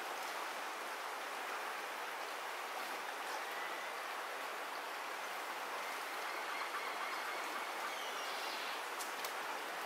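Shallow river water running steadily over gravel and stones.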